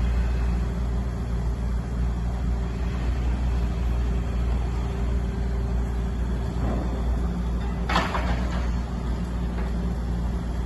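Steady low rumble of a large construction crane's engine running while it lowers a piece of roller coaster track. There is a single sharp clank about eight seconds in.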